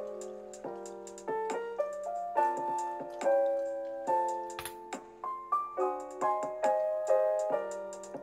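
Background piano music playing a melody over chords, with a new note or chord about every half second.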